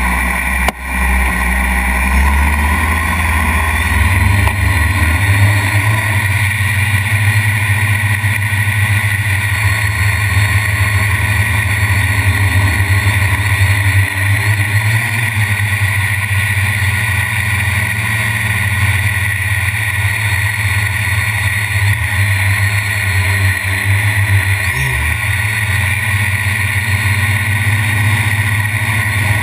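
Quadcopter's electric motors and propellers whirring steadily in flight, heard close up through the onboard camera: a steady low hum under a high whine, with a brief dip about a second in.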